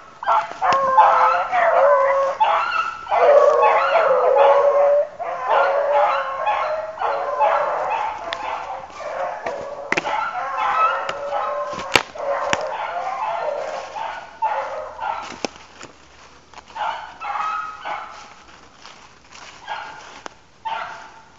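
Hounds baying on the trail of a swamp rabbit, several voices overlapping in a steady chase cry that grows fainter and broken toward the end.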